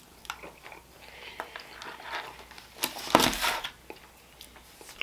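Close crinkling and rustling of handled food packaging, with scattered small clicks. The loudest rustle lasts under a second, about three seconds in.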